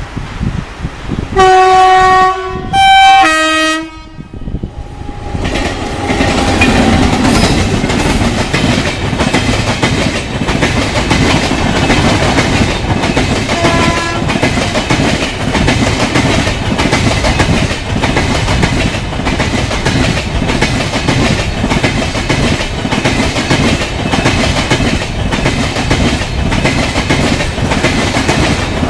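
WAP-7 electric locomotive's horn sounding two long blasts, one straight after the other. The passenger coaches then pass at speed with a loud, steady rumble and a regular clickety-clack of wheels over rail joints. A brief faint horn toot sounds about halfway through.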